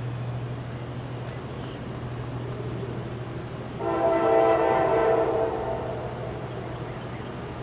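Norfolk Southern freight locomotive's air horn sounding one blast of about a second and a half, starting about four seconds in, as the train approaches: a chord of several notes sounding together.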